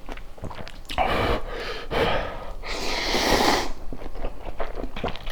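The person eating makes several noisy, breathy intakes of breath, the longest lasting about a second near the middle.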